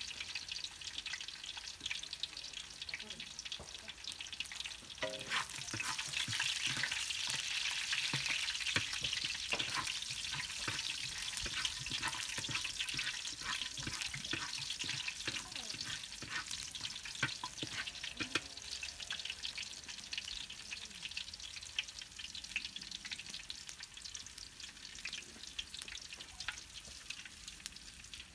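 Food frying in hot oil in a pan, sizzling and crackling, with the clicks and scrapes of a utensil stirring it. It grows louder about five seconds in and eases off toward the end.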